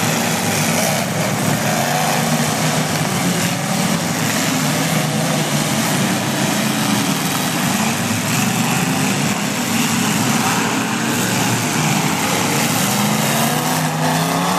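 Engines of several demolition derby cars running and revving in a loud, steady din, their pitch rising and falling.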